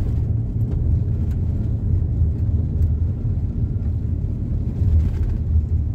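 Van driving on a gravel road: a steady low rumble of engine and tyres.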